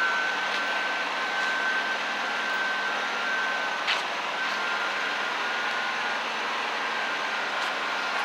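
Machinery running steadily: an even drone with a high, wavering whine on top and a few light clicks.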